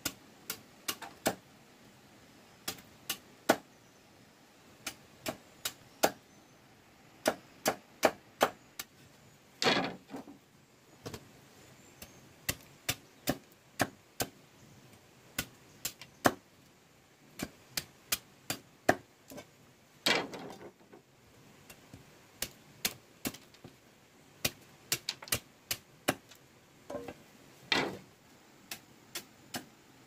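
Machete chopping bamboo slats against a wooden chopping block: a string of sharp knocks, about one to two a second and uneven, with three longer, noisier strokes near 10, 20 and 28 seconds in.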